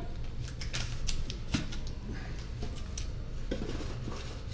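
Scattered light clicks and taps as plastic rice tubs are set down and stacked on a countertop and a cardboard box is handled, over a steady low hum.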